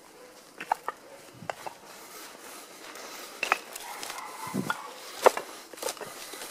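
Footsteps through long grass and debris: irregular snaps, clicks and crunches of dry stems and rubble underfoot, with a duller thud about four and a half seconds in.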